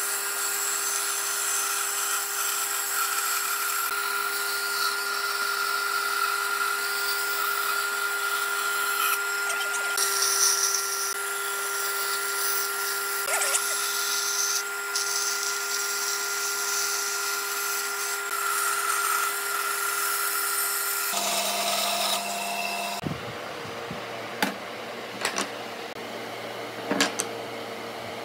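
Bench band saw running with a steady whine while its blade cuts curves through a pine board. About 23 seconds in, the saw sound gives way to a quieter hum with a few sharp knocks as the wooden cut-outs are handled on a workbench.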